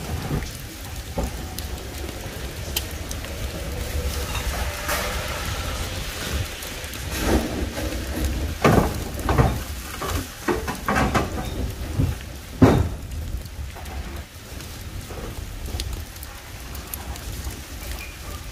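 Steady rain, with a run of sharp knocks and clatters between about seven and thirteen seconds in as the trash-bin hatches are opened and bags are pushed through.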